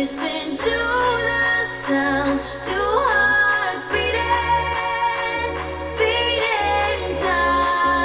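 Electronic pop song with a woman singing, played back through a pair of homemade transmission-line speakers with 4-inch full-range drivers. A heavy bass line comes in about halfway through.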